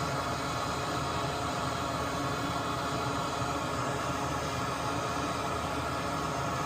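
Steady whirring hiss with a faint hum from a small electric fan running at an even speed.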